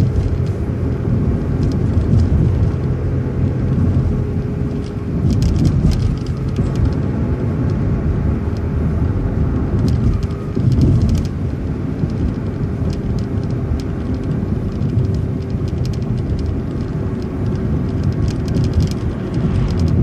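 City transit bus driving, heard from inside: steady engine and road noise with a constant hum and light rattles.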